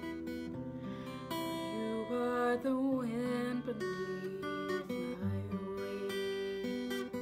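Steel-string acoustic guitar strumming sustained chords, with a woman's voice holding a wavering sung note in the middle.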